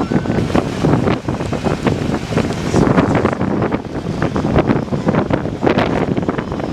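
A vehicle driving on a mountain road, with wind buffeting the microphone in loud, steady gusts and a dense run of short knocks and rattles throughout.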